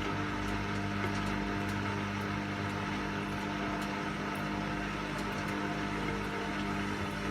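Washing machine running: a steady motor hum and whir at an even pitch, with a few faint clicks.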